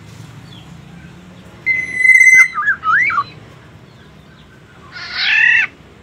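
Black-naped oriole: a held whistle breaks into a short run of liquid, fluting notes that slide up and down. About two seconds later comes one harsh, nasal call.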